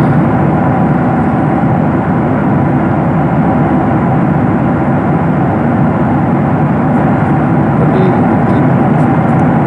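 Steady cabin noise of a jet airliner in cruise, heard inside the cabin: an even, unbroken rush of engine and airflow noise, mostly low in pitch.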